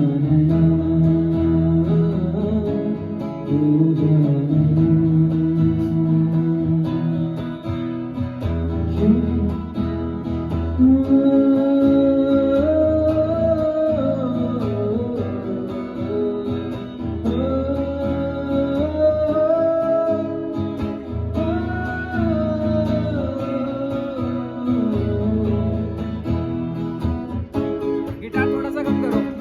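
Live amplified music: a guitar strummed through a sound system, with a voice singing long, held melody lines over it from about a third of the way in.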